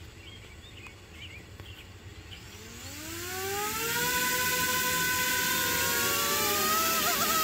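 Five-inch FPV quadcopter's motors and propellers spinning up about two and a half seconds in with a rising whine, then running steadily on the ground, with a brief wobble in pitch near the end. The propellers are now fitted the right way round, and the motors sound better for it.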